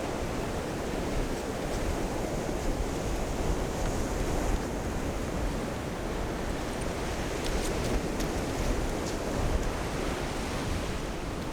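Ocean surf washing onto the beach, a steady rushing noise, with wind buffeting the microphone. A few faint high ticks come in the second half.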